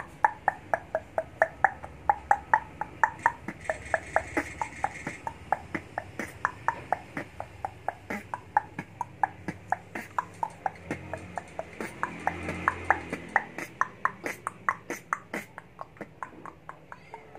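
A steady run of quick, pitched mouth clicks, about five a second, made as a beatbox sound with a hand cupped over the mouth; the pitch of the clicks shifts up and down.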